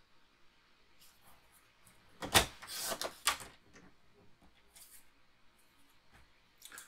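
A paper trimmer cutting cardstock: a sharp click a little over two seconds in, then about a second of scraping as the blade slides through, with a softer rustle near the end.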